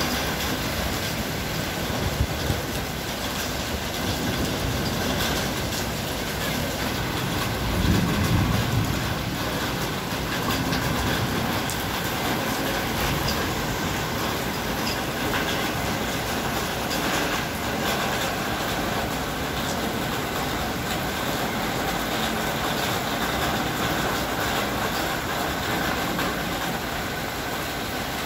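Heavy rain pouring steadily onto a flooded street and parked cars, with a low rumble swelling briefly about eight seconds in.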